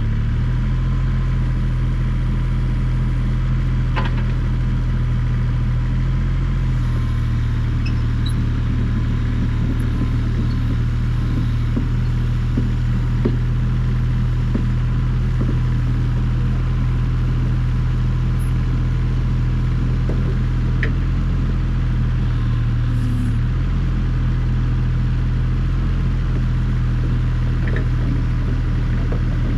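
Diesel engine of a compact track loader running steadily at a constant speed, with scattered light clanks.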